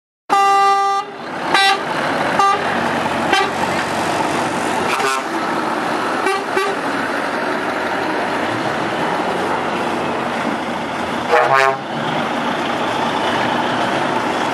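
Truck horns sounding as heavy trucks drive past: a long blast about a third of a second in, then a string of short toots, the last and longest about eleven seconds in, over the steady running of the trucks' diesel engines.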